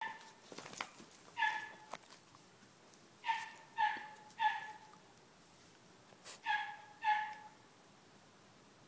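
Small terrier-mix dog giving six short high-pitched whines, one, then three in quick succession, then two more, each held on one note. A few light clicks come in the first two seconds.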